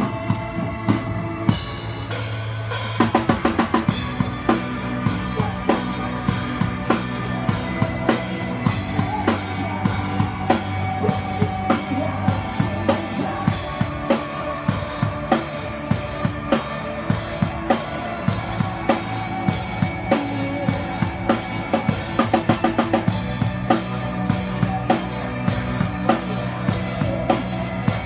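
Live indie rock band playing an instrumental passage with no vocals: a drum kit keeps a steady beat on bass drum and snare under sustained bass and guitar notes. A quick drum fill about two to three seconds in leads into the fuller full-band section.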